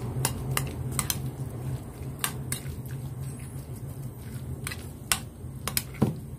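A spoon stirring and mashing crumbled tofu in a glass bowl: soft squishing with irregular clinks of the spoon against the bowl, over a steady low hum.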